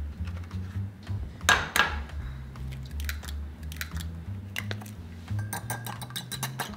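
Eggs cracked against the rim of a ceramic bowl, with a sharp crack about a second and a half in. Near the end the eggs are beaten, the utensil clicking rapidly against the bowl. Soft background music plays underneath.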